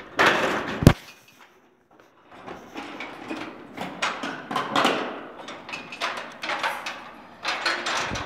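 Irregular scraping and rustling knocks, with one sharp knock about a second in, then a short lull before the scraping and knocking go on.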